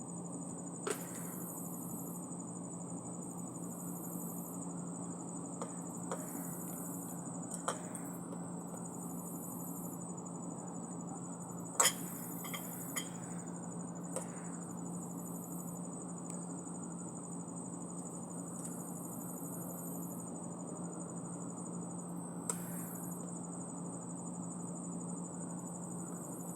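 Insects trilling steadily in the background over a low steady hum, with a few sharp clicks, the loudest about twelve seconds in.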